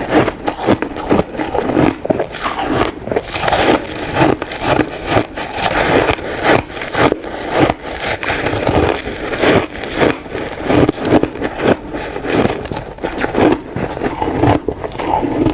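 Close-up crunching of hand-compressed shaved ice being bitten and chewed: a dense, irregular run of crisp crunches, several a second.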